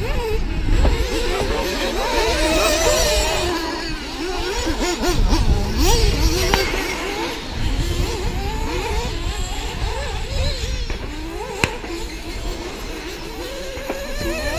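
Several radio-controlled racing cars running around a track together, their motors rising and falling in pitch as they accelerate and brake, over a low rumble. One sharp click about three quarters of the way through.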